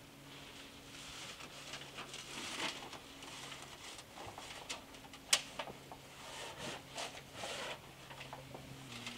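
Thin titanium stovepipe sheet, barely thicker than foil, being rolled into a tube by hand: a light crinkling metal rustle with scattered small clicks and one sharp click about five seconds in.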